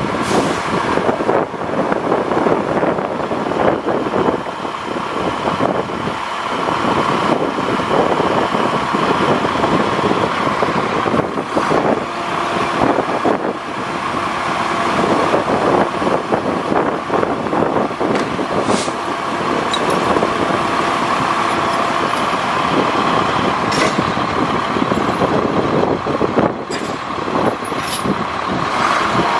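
International DT466 diesel engine running steadily, driving the hydraulics while the Altec aerial boom and bucket are worked from the bucket controls. A few brief sharp clicks come near the middle.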